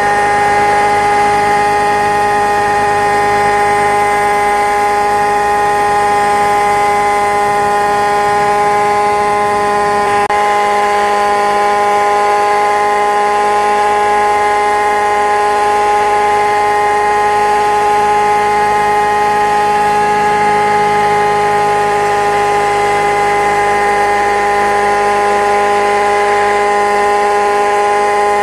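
Small engine of a radio-controlled camera helicopter running at a steady high-pitched whine, its pitch holding constant throughout.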